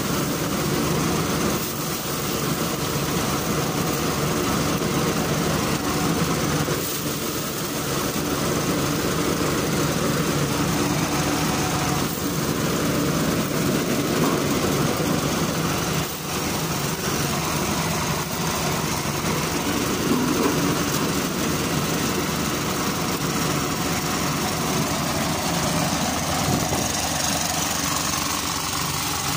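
Engine-driven rice thresher running steadily: the small engine's constant drone under the noisy whirr of the threshing drum as rice stalks are fed in by hand.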